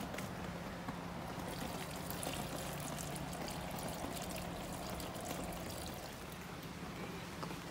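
Water pouring steadily from a plastic jug onto a potted plant, easing off a little near the end.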